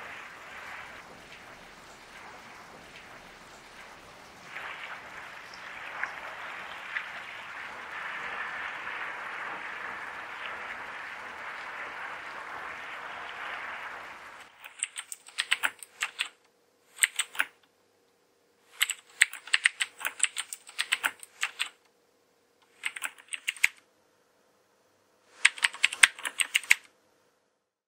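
A steady hiss of water that cuts off about halfway, followed by runs of fast typing on a keyboard, five or six bursts with pauses between them, over a faint steady hum.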